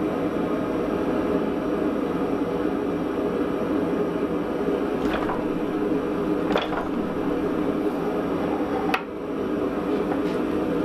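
Hydraulic forging press running with a steady mechanical drone while its punch works into a block of hot tool steel, with a few sharp metallic clicks in the second half.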